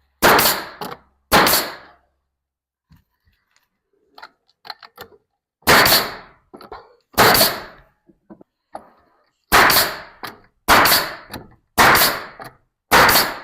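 Bostitch pneumatic coil siding and fence nailer firing eight times, driving nails into wooden boards. Each shot is a sharp crack that dies away quickly, at irregular gaps of one to four seconds.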